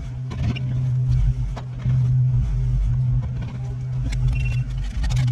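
Kubota U55-4 mini excavator's diesel engine running steadily, its loudness rising and falling as the machine works, with a few short knocks and scrapes.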